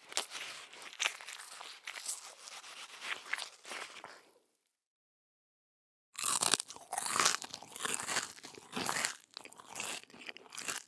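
Close-miked chewing of crunchy food: a dense run of crackling crunches that stops about four and a half seconds in. After a second and a half of silence, a second, louder take of crunchy chewing starts.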